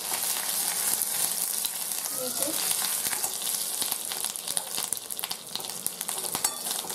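Cumin seeds, a dried red chilli and ginger paste sizzling in hot oil in a kadhai: a steady crackling hiss, with a few sharp clicks near the end.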